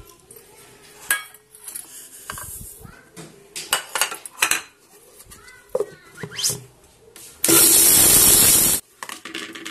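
Whole spices clinking into a stainless steel mixer-grinder jar and the lid being fitted. About seven and a half seconds in, the grinder motor runs in one short burst of about a second and a half, then stops sharply: a quick pulse to grind black pepper, fennel and ajwain coarsely.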